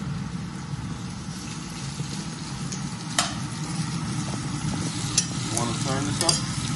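Pieces of roast pork sizzling in hot oil in a stainless steel frying pan. From about three seconds in, a metal spoon clinks and scrapes against the pan as the meat is stirred.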